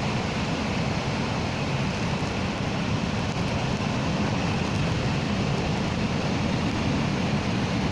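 Heavy sea waves breaking and churning, a steady, even wash of noise, with wind on the microphone.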